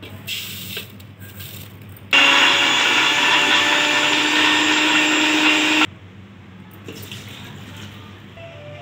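Electric blender grinding dry almonds, cashews, coconut and raisins with sugar to a powder. The motor starts about two seconds in, runs steadily for nearly four seconds and stops abruptly. Before it, sugar is tipped into the jar.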